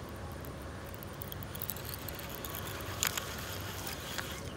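Buzz bait being retrieved across the pond surface: light irregular clicks and splashes, with a sharper splash-click about three seconds in, over a low rumble of wind on the microphone.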